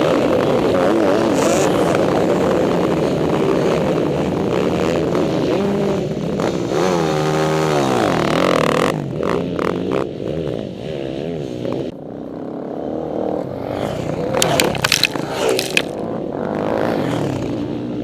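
Motocross dirt bikes racing past at close range, several engines revving and fading. One bike's engine dips and then rises in pitch as it goes by about seven seconds in. The sound eases off around twelve seconds, then more bikes pass with sharp clicks.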